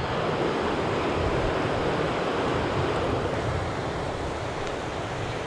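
Steady rushing of a shallow river running over stones and gravel.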